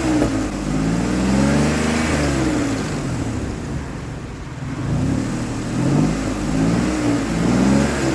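2003 Ford Explorer engine being revved: the revs climb and hold, drop back near the middle, then climb again. It is running smoother now that a bad ignition coil behind its misfire has been replaced, and it smooths right out as the revs come up.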